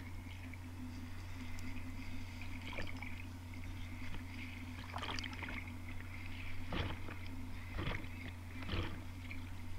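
Muffled underwater sound of sea surge, washing around a diver, over a steady low hum. A few short bubbling crackles come about halfway through and again near the end.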